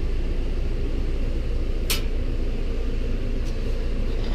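Steady low machine hum with one sharp click about two seconds in.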